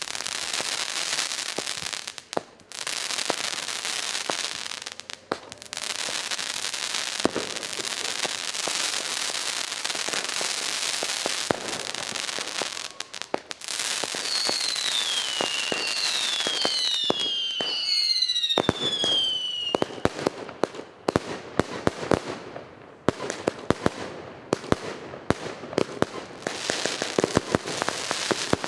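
Tropic TB62 firework firing. A long rushing hiss of launching shots comes first, broken by short pauses. About halfway through, several overlapping whistles fall in pitch. Rapid crackling and sharp pops follow to the end.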